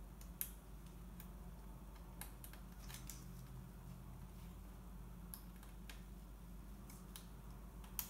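Faint, scattered small clicks and ticks of fingers handling a laptop's flat flex ribbon cable and plastic connector as the keyboard and touchpad cables are fed back into place, over a low steady hum.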